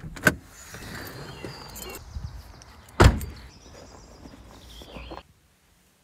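Sounds from inside a car: two sharp clicks at the start and some rustling, then one loud thud about three seconds in. A quieter hum with a faint high tone follows and cuts off suddenly just after five seconds.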